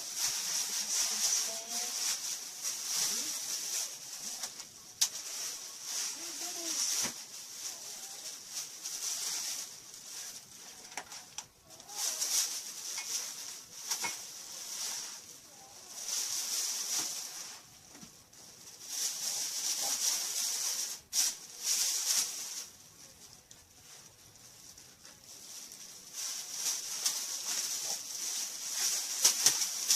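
Crinkling and rustling of packing material as items are unwrapped and handled, coming in uneven swells every second or two with a few sharp clicks.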